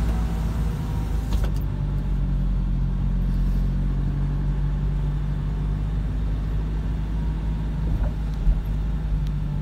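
Steady low drone of a car's engine and road noise heard from inside the cabin, the car moving slowly in heavy traffic.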